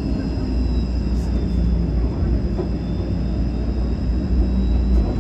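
TTC streetcar running along its tracks, heard from inside the car: a steady low rumble with a faint hum over it.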